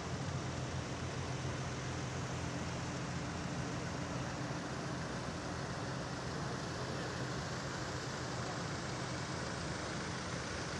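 Diesel engines of a column of farm tractors running as they drive past, a steady low engine hum over road noise.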